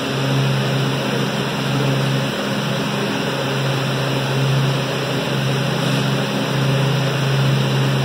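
Walk-in cooler evaporator fans running: a steady rush of moving air with a low hum that swells and fades every second or two.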